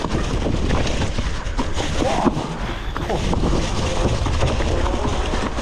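Hardtail mountain bike riding down a leaf-covered dirt singletrack: tyres rolling over dry leaves and ground, with the bike rattling and clicking over the bumps and wind buffeting the helmet or chest camera microphone.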